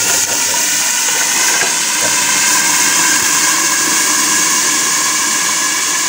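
Hot oil and browned onions sizzling hard in a covered aluminium pot, a little water having just been poured in: a loud, steady hiss of boiling and steam.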